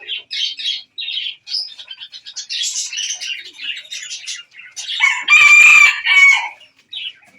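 Small birds chirping throughout in short, high calls. About five seconds in, a rooster crows once: a loud call of about a second and a half, and the loudest sound.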